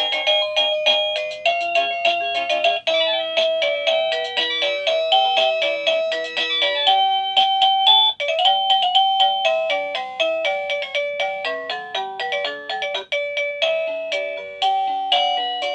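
Papayay wireless doorbell receiver playing its electronic chime tunes, simple bell-like melodies of clear beeping notes. The tune breaks off and a new one starts about three, eight and thirteen seconds in, as the chime-select button cycles through its 52 melodies.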